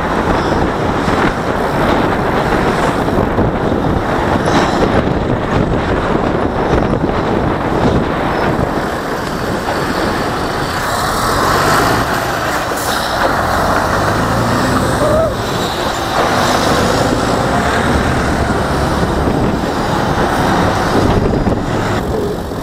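Loud steady rush of wind on the microphone of a moving camera, mixed with the engines and tyres of city traffic, including a truck.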